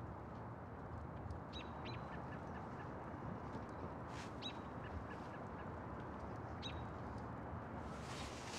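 Quiet outdoor winter ambience: a steady low hiss with a few short, high bird chirps. Rustling starts near the end.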